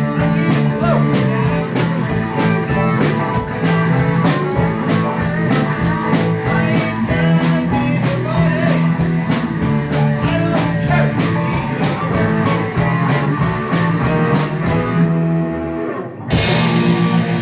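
Rock band playing an instrumental passage of a blues-rock tune on electric guitars, bass and drum kit, with a steady drum beat. About fifteen seconds in the drums drop out, and a moment later the full band comes back in with a loud hit.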